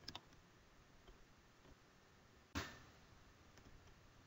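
Near silence of a small room, broken by a couple of faint clicks at the very start and one sharper click about two and a half seconds in.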